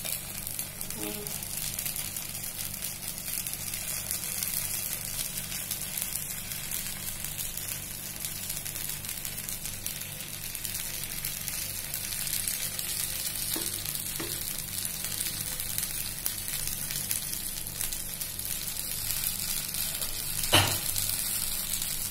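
Batter sizzling in hot oil in the cups of a kuzhi paniyaram pan, a steady hiss. A single sharp knock comes near the end.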